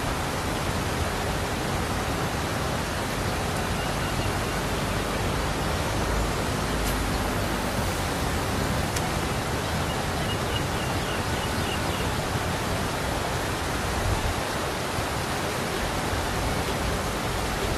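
Steady rushing of water pouring over a sluice-gate weir.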